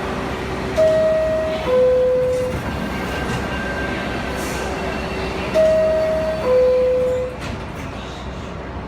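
New York City subway R62A car's door chime sounding a descending two-tone 'ding-dong' twice, about five seconds apart, over the steady hum of the train. It is the warning that the doors are closing.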